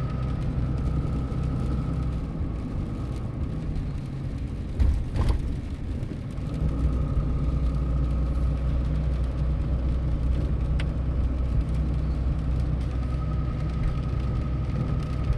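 Car running on the road, heard from inside the cabin: a steady low engine and road rumble with a faint steady whine, a single knock about five seconds in, and the rumble growing fuller about a second and a half later.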